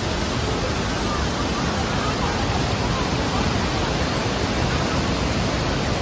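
Fast-flowing stream rushing over rocks in white-water rapids: a steady, loud hiss of water.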